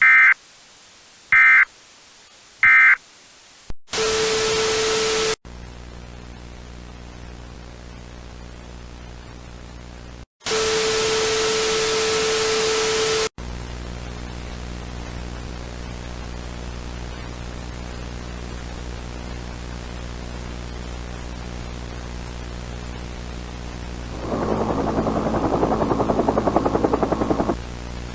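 Three short bursts of Emergency Alert System end-of-message data tones, followed by two loud bursts of static, each carrying a steady tone. Between and after them runs a steady low electrical hum, with a louder rough, pulsing noise near the end.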